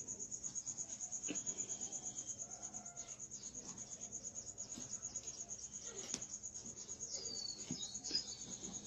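Insects chirping: a steady, rapid, high-pitched pulsing, about nine pulses a second, with a few faint knocks and a brief high chirp near the end.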